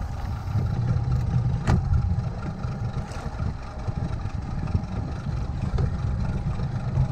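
Boat engine idling with a steady low rumble, and a single sharp click about a second and a half in.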